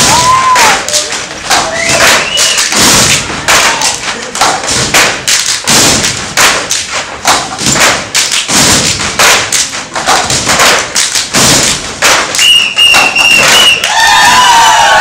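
West African djembe and dunun drum ensemble playing a fast, dense rhythm of hand and stick strokes. A high steady tone is held for about a second and a half near the end.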